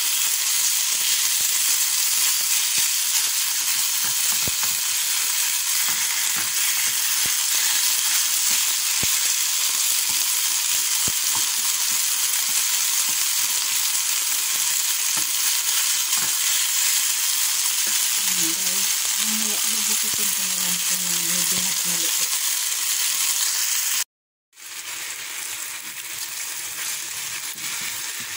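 Beef slices sizzling in hot oil in a non-stick frying pan as they are stirred and turned with a wooden spatula, a steady hiss. The sizzle cuts out abruptly near the end and comes back a little quieter.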